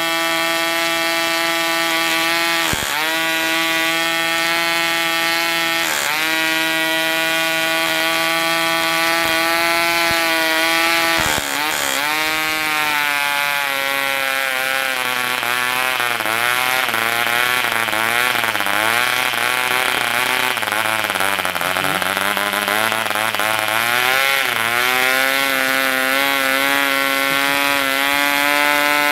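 Taipan Tyro 1.9 cc model diesel engine running at high speed with a steady buzz. From about halfway through its pitch wavers down and up as the compression screw is adjusted, then it settles again. The engine has a nailing knock, which the builder puts down to fuel droplets.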